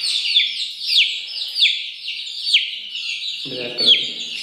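Aseel chick peeping loudly over and over, about two calls a second, each call falling in pitch. These are the shrill repeated peeps of a chick in distress while being held in the hand.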